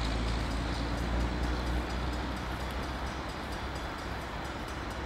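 Diesel locomotive approaching on the main line, a steady low engine rumble.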